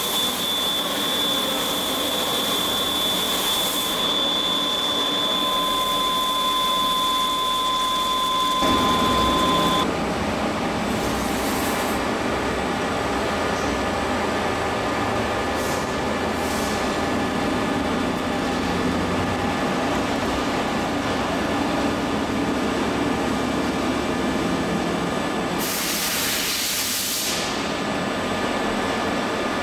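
CNC bed milling machine drilling with a 14 mm carbide drill under coolant spray, its spindle giving a steady high whine over the cutting and spray noise. About ten seconds in the whine stops and a steadier machine hum with spray noise takes over, and a loud hiss lasting about a second and a half comes near the end.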